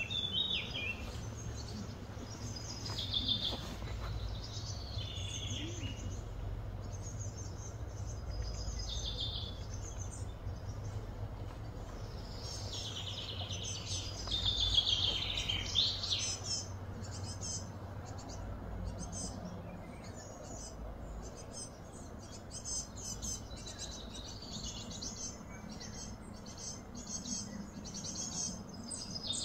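Outdoor ambience of wild birds chirping and calling on and off, with a cluster of louder sliding calls around the middle, over a steady low hum.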